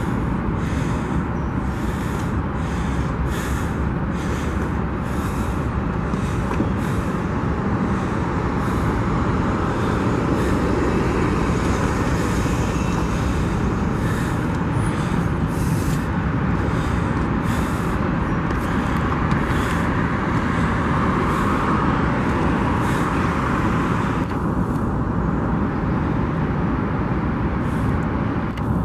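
Slow-moving Union Pacific freight train rolling past, a steady, even rumble with scattered light clicks.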